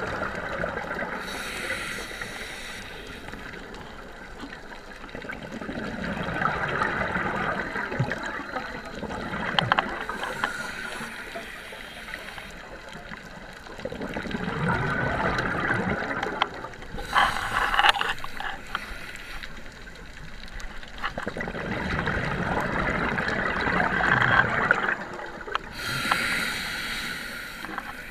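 Scuba diver breathing through a regulator underwater: four breaths, each a short hissing inhale followed by a longer bubbling exhale, roughly every eight seconds.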